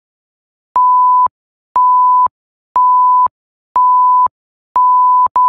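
Countdown timer's electronic warning beeps marking the final seconds: five half-second beeps of one steady, pure pitch, one each second, each switching on and off with a slight click. Near the end a further beep follows straight after the fifth.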